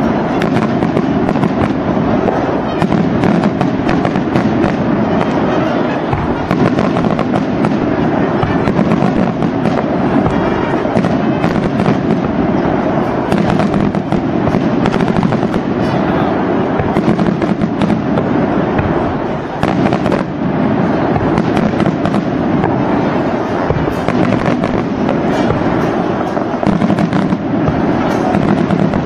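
Firecrackers going off in a dense, continuous crackle of rapid bangs.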